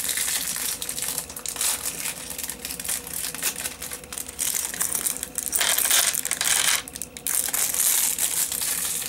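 Plastic packaging crinkling while small Lego pieces click and rattle against each other, louder for a second or so about six seconds in.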